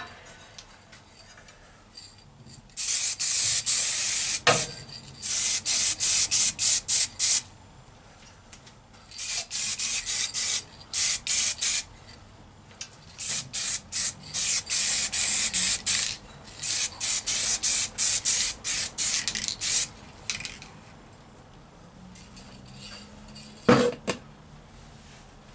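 Aerosol spray can of black paint hissing in a series of sprays: longer passes of a second or two and quick short bursts, with pauses between them. A couple of brief knocks come during it.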